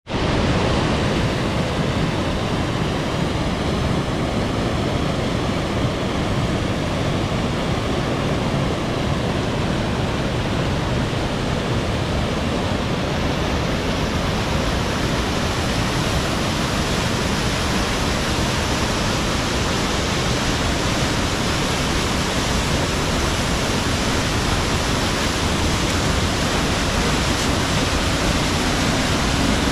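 Small waterfall swollen with muddy floodwater, pouring over rock and churning in the pool below: a loud, steady rush of falling water. The hiss grows a little brighter about halfway through.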